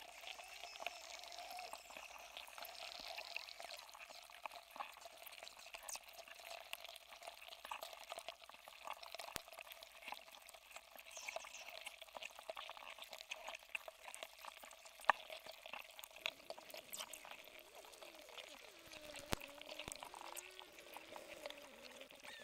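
Block of ice melting in water, heard through contact microphones frozen inside it: constant fine crackling and ticking as the ice cracks, with one sharper crack about fifteen seconds in and a few low wavering warbles near the end.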